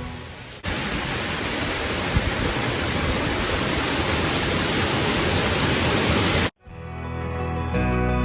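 Waterfall rushing: a steady hiss of falling water that cuts in about half a second in and stops abruptly near the end, with background music fading out before it and coming back after.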